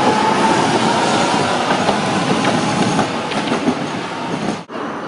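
Tatra T3 tram passing close by on its rails: wheels rumbling and clattering with scattered knocks, a faint whine rising slightly in pitch. The sound fades as the tram moves away.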